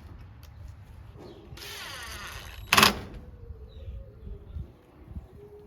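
A coop door being moved on its hinges: a scraping rush for about a second, ending in one loud bang about halfway through, then faint creaking.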